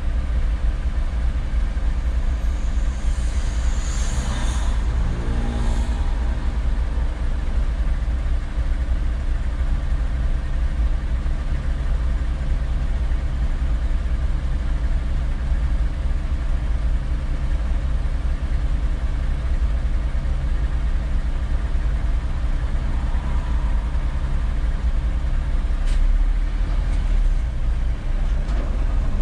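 Steady low rumble of vehicle engines idling in stopped traffic, a large truck among them close alongside. About four seconds in comes a brief hiss, then a short falling tone.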